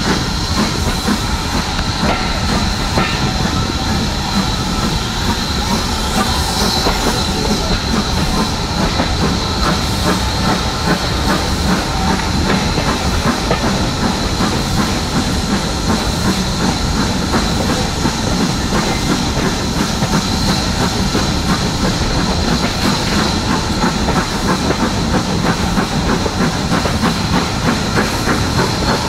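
Passenger train running along the track, heard from a carriage window: a steady, loud mix of wheel-on-rail running noise and hiss.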